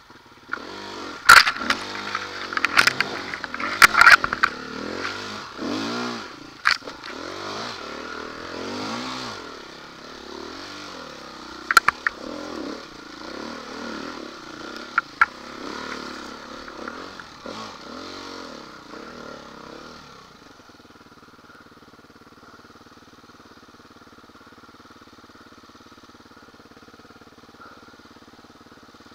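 Off-road motorcycle engine revving up and down under throttle, with sharp knocks and clatter several times in the first seven seconds and again around twelve and fifteen seconds in. About twenty seconds in, the revving stops and the engine settles to a steady, quieter running.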